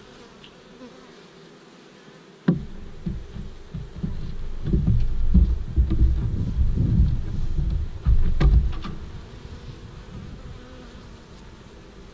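Carniolan honeybees buzzing over an open hive as frames are handled, under heavy, uneven low rumbling from handling noise on the microphone. Two sharp knocks, one about two and a half seconds in and one near eight and a half seconds.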